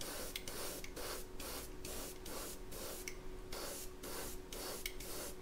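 Gravity-feed Iwata HP-C airbrush spraying paint in short, quick bursts, about three a second, its hiss starting and stopping as the trigger is worked for detail around the lure's head. A faint steady hum runs underneath.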